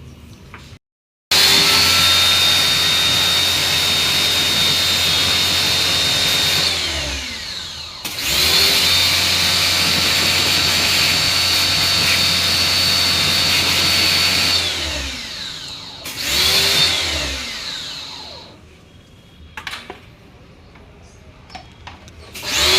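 Electric motor with a high whine, switched on three times: two runs of about six seconds and a short burst, each winding down with falling pitch when released.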